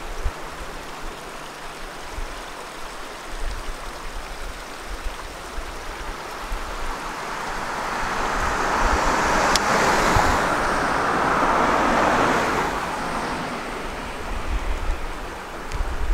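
Shallow river running over gravel riffles, a steady rush of water, with wind buffeting the microphone. Around the middle a louder whoosh swells and fades over several seconds.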